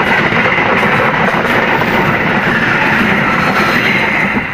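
Lodaya passenger train rolling past at speed: a loud, steady rumble of wheels on rail with a thin high-pitched squeal, dropping away suddenly near the end as the last carriage clears.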